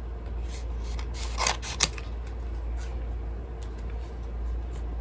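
Scissors snipping through a cardboard tag, with two sharp snips about one and a half seconds in and a few fainter clicks, over a steady low hum.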